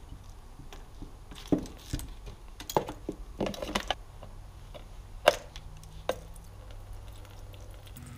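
Hand tools and small metal parts clinking and clacking on a wooden workbench as they are handled, set down and picked up. There are several sharp knocks between about one and a half and six seconds in, the loudest about five seconds in, over a low steady hum.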